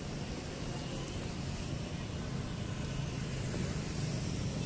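Steady road traffic noise from cars and motorbikes going by on a wide city street.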